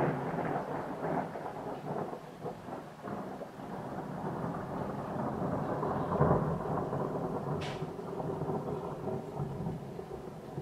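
A thunder peal rolls on with crackling, swells to a second loud peak about six seconds in, then slowly fades. Rain is heard under it.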